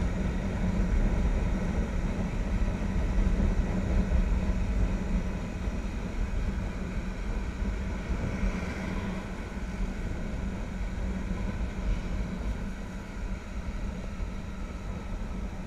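Motorcycle engine running at a steady cruising speed, heard from an on-board camera, with wind rumble on the microphone. The level eases a little toward the end.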